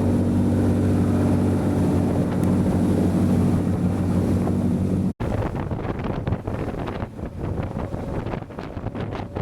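A steady, loud engine drone for about five seconds, then a sudden cut to wind buffeting the microphone over choppy water.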